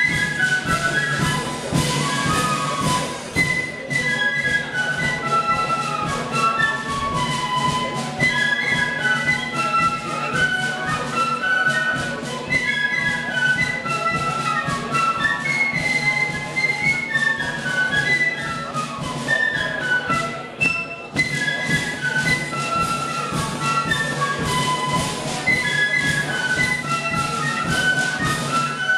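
Melody flute band playing a tune in harmony: massed flutes carry the melody over a steady drum beat, with a brief break about three-quarters of the way through.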